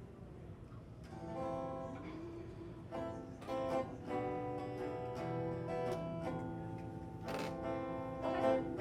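Acoustic guitar strummed and picked in chords, starting about a second in, playing the instrumental lead-in to a folk song.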